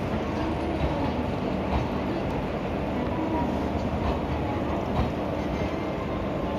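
Rajdhani Express passenger coaches rolling past along the station track: a steady rumble of wheels on rail, with a few sharper clacks as wheels cross rail joints.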